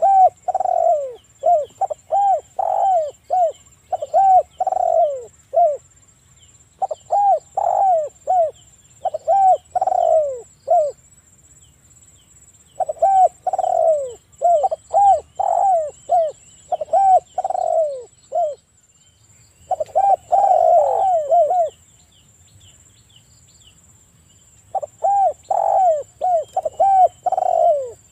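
Spotted dove calling: five bouts of quick, repeated cooing notes that each rise and fall in pitch, every bout lasting a few seconds with short pauses between. A faint, steady high-pitched whine runs underneath.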